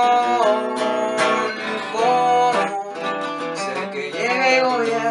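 A man singing in Spanish to a strummed acoustic guitar, drawing the word "pasión" out into long held notes that bend in pitch.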